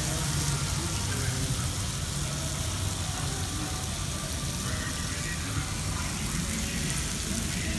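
Fajitas sizzling on a hot skillet, a steady hiss over a steady low background rumble.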